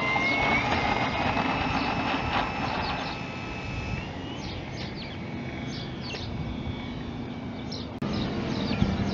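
Electric outrunner motor and propeller of a large RC Spitfire (SK3 5055 280 KV motor, APC 20x11 prop) whining through its takeoff run and climb-out. The whine steps up in pitch about half a second in and again about four seconds in.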